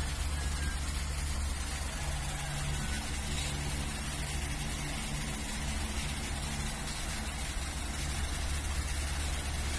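Mother cat purring while nursing: a steady low rumble that eases off briefly now and then with her breathing.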